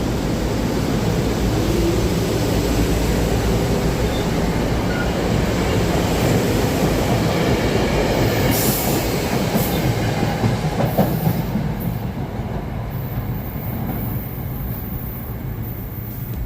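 SEPTA Regional Rail train running on the rails, wheels rumbling and clicking over the track, getting quieter about three-quarters of the way through.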